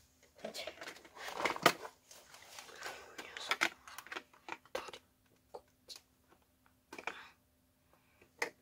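Irregular plastic clicks, knocks and rustling as hands turn over a WPL D12 RC truck's plastic chassis and work its battery into a narrow battery compartment, the loudest burst about a second and a half in.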